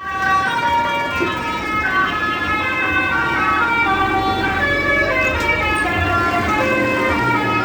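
Bus telolet horn: a bus's multi-tone musical air horn playing a quick melody of held notes, several tones sounding at once and stepping from pitch to pitch, over a low rumble.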